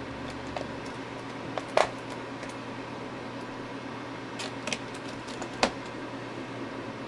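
A few small, sharp metallic clicks and taps of tiny screws and a screwdriver being handled while the main board screws go back into a Lenovo Legion Y520 laptop; the loudest clicks come near two seconds in and near six seconds. A low steady hum runs underneath.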